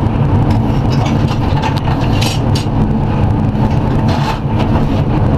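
A farm machine's engine running steadily at a constant speed, heard from inside its cab, with brief high hisses about two seconds in and again around four seconds.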